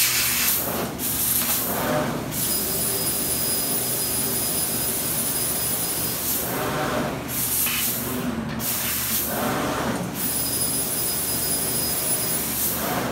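Prima CNC fiber laser cutter engraving lines in an aluminum sheet with nitrogen assist gas at about 200 PSI. A steady hiss with a thin high whine is broken several times by louder rushes of noise, about a second each, as the cutting head engraves and rapids between lines.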